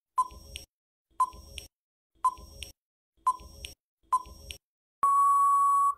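Quiz countdown timer sound effect: five short beeps, one a second, then a long steady beep about a second long as the count reaches zero.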